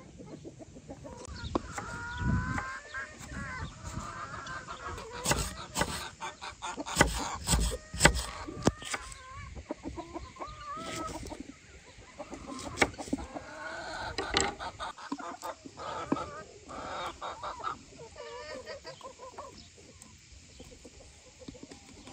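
Chickens clucking in short, pitched calls, with a run of sharp knocks and clatter about five to nine seconds in.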